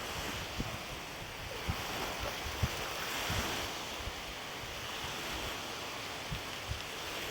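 Steady wind with small lake waves washing on the shore, and gusts buffeting the microphone in short low rumbles.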